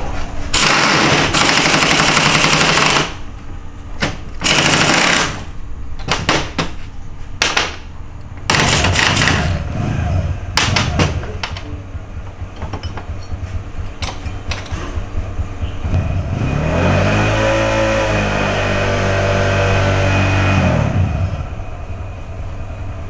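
Workshop tool noise from motorcycle chain-sprocket work: two loud rattling bursts, then a run of sharp metal clicks. Near the end a motor-like whirr rises in pitch, holds for a few seconds and winds down.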